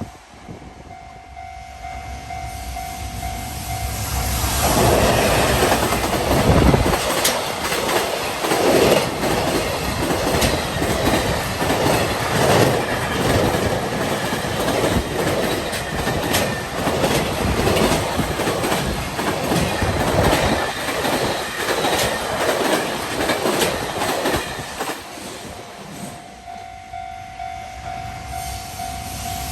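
Freight train passing a level crossing at speed, its wheels clattering over the rail joints in a steady rhythm for about twenty seconds before fading. A level-crossing warning bell rings as a steady tone before the train arrives and again as it clears.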